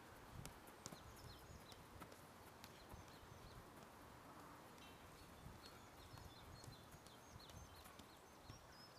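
Very faint, quick taps of a football being touched along by the feet while dribbling on artificial turf, over near-silent outdoor background with faint bird chirps.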